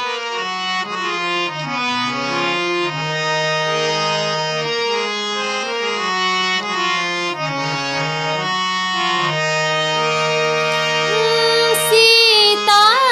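Harmonium playing a melodic introduction of held reed notes over a sustained low drone. Near the end a woman's voice begins singing a devotional chaupai over it.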